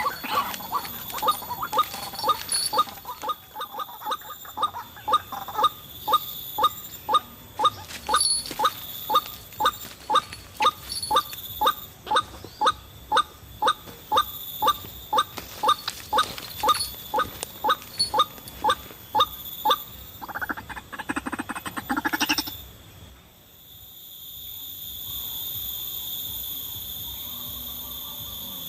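A white-breasted waterhen's call, a short note repeated about twice a second for some twenty seconds. Near the end it breaks into a brief denser burst, then gives way to a steady insect drone.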